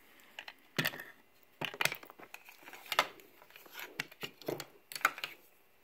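Irregular light clicks and knocks of Zenith Trans-Oceanic radio parts being handled and set against the radio's case, about a dozen taps in all.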